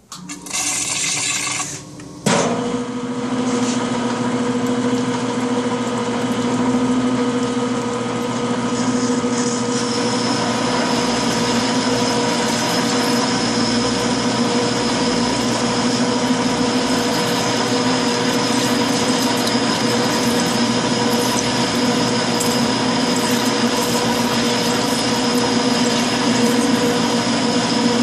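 Metal lathe running with its coolant system: a brief hiss for about the first two seconds, then, a little over two seconds in, a steady machine drone with several whining gear tones starts and holds.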